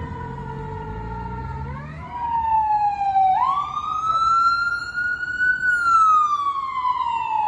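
A fire engine's siren winding down with the truck's engine rumbling beneath, then, about two seconds in, a louder ambulance siren in a slow wail: it dips, rises sharply, climbs slowly and then glides back down.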